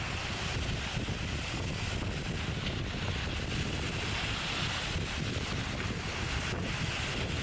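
Wind buffeting the microphone over the steady hiss of surf washing up the beach.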